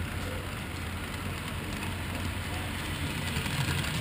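HO scale model freight train rolling past: the wheels of a string of hopper cars running steadily on the track, over a steady low hum, a little louder near the end as the caboose goes by.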